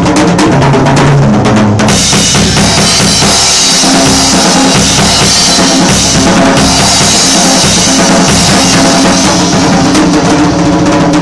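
Pearl drum kit being played: a steady beat of bass drum and snare strikes, with cymbals washing and ringing through most of the middle stretch and separate drum hits coming through more clearly again near the end.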